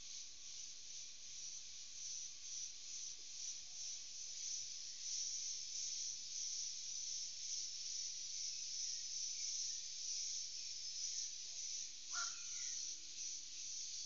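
Tropical forest at dusk: a dense, high-pitched chorus of insects, buzzing with a fast pulse. About twelve seconds in, one short call drops sharply in pitch.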